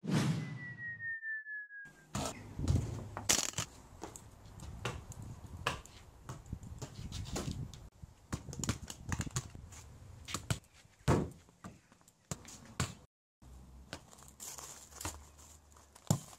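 Handheld camera handling noise outdoors: scattered clicks, knocks and crackling rustle as the camera is carried about. Near the start a short whistle-like tone falls slightly in pitch, followed by a moment of dead silence.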